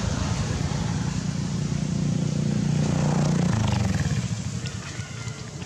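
A passing motor vehicle's engine: a low hum that swells to its loudest about three seconds in, then fades away.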